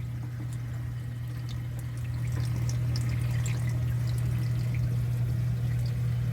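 Reef aquarium sump with the protein skimmer running: a steady low pump hum under trickling, splashing water with small scattered drips.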